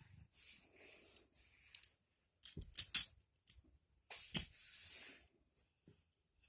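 Magnetic building blocks being handled and snapped together: soft rustling, a quick run of sharp clicks near the middle and one louder clack a little past four seconds in.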